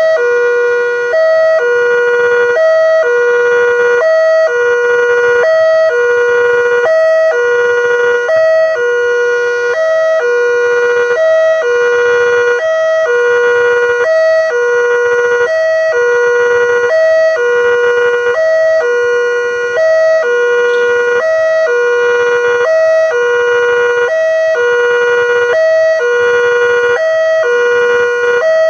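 Railway level-crossing warning alarm sounding without a break: an electronic two-tone signal, a short higher note alternating with a longer lower one, repeating about every second and a half, the signal that a train is approaching.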